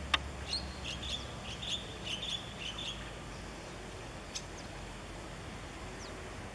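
A small bird chirping: a quick run of short high notes through the first three seconds, over a steady low rumble. A sharp click comes right at the start.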